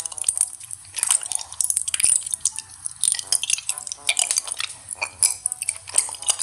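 Close-miked ASMR eating sounds: crisp bites, crunching and wet chewing in quick irregular strokes, with light clinks.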